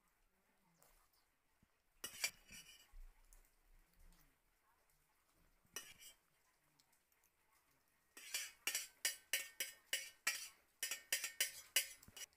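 Metal spoon clinking against a metal bowl: a few clinks about two and six seconds in, then a quick run of clinks, about four a second, over the last four seconds.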